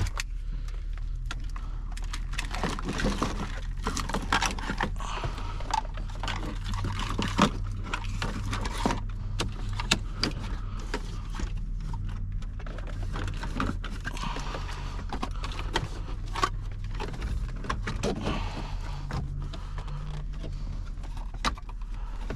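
Wiring harness bundles and plastic connectors rustling, rattling and clicking as they are pushed by hand into the dashboard radio opening, over a steady low hum.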